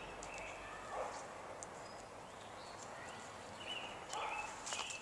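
Faint short bird calls, near the start and again about four seconds in, with footsteps on bare dirt.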